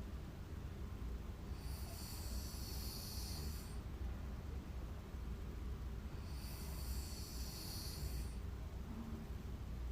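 A sleeping person snoring: two long, hissing breaths about five seconds apart, each lasting about two seconds, over a steady low hum.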